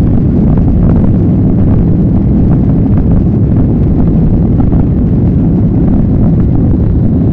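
Boeing 737's CFM56 turbofan engines at takeoff thrust and the runway rumble, heard from inside the cabin during the takeoff roll: a loud, steady, deep noise.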